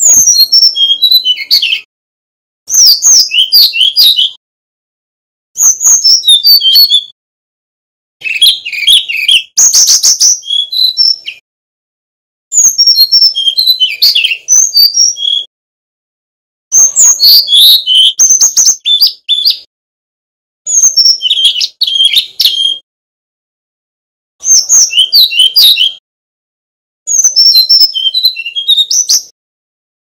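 Male brown-chested jungle flycatcher (sikatan rimba dada coklat) singing loud, rapid runs of high, varied whistled notes in phrases of two to three seconds, with pauses of about a second between them, about nine phrases in all. One phrase about ten seconds in carries a harsher, buzzy note.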